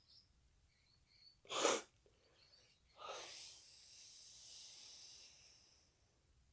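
A person's breath: a sharp, loud burst through the nose about one and a half seconds in, then a long hissing breath out lasting about three seconds.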